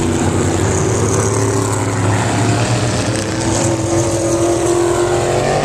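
Several vintage sprint and midget race cars running at speed on a dirt oval, their engine notes overlapping, with one engine's pitch rising near the end.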